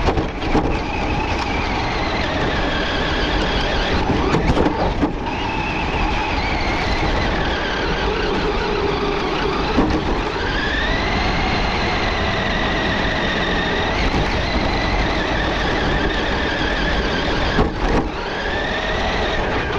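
RC truck driving, heard from a camera mounted on the truck: its motor and drivetrain whine, rising and falling in pitch as it speeds up and slows, over the rattle and rumble of the wheels and chassis on the ground, with a few knocks.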